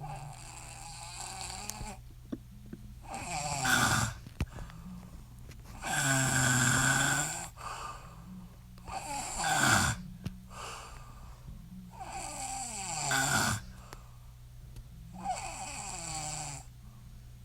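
A woman snoring, about six snores spaced roughly every three seconds, several sliding down in pitch as they fade.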